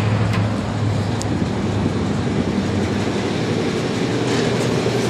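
Pickup truck on a chassis dynamometer just after a pull: a steady low hum and rumble from the 2011 Chevrolet Silverado's 4.8-litre V8 and the dyno rollers, with a few faint clicks.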